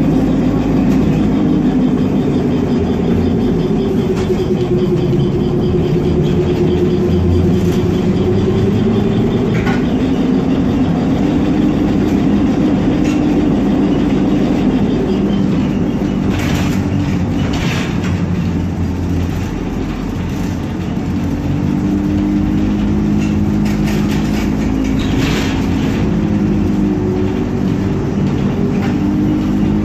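ZiU-682 trolleybus running, a steady hum whose pitch slowly rises and falls as it speeds up and slows down, with a few clicks and rattles in the second half.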